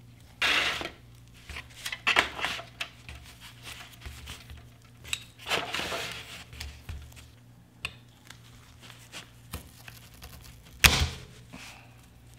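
Separate scrapes, clicks and knocks of a brake caliper and a wrench being handled over an aluminium foil drip tray as the bleeder screw is worked loose, with one sharp knock about eleven seconds in.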